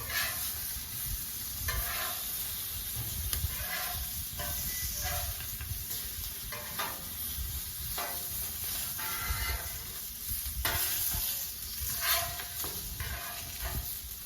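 Mushrooms, black pudding and bacon sizzling steadily on a Blackstone flat-top griddle, with brief scraping sounds every second or so.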